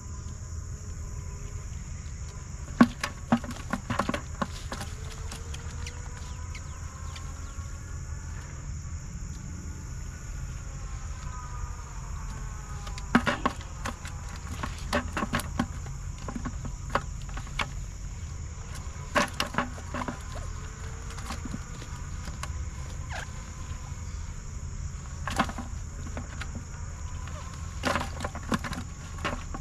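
Steady, high-pitched insect chorus running unbroken, with sharp knocks and clatters every few seconds, the loudest about 3, 13, 19, 25 and 28 seconds in.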